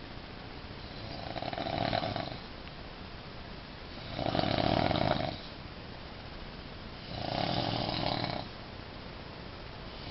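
A sleeper snoring steadily, three long snores about three seconds apart, each lasting over a second, the third starting near the end.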